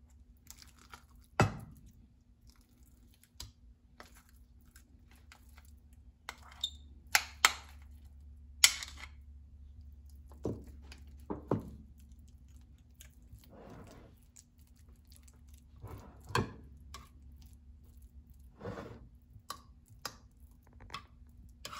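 A spoon scooping guacamole from a bowl and spreading it over a bean layer in a glass baking dish: soft wet squishing, with scattered sharp taps and clicks of the spoon against the glass dish and the bowl.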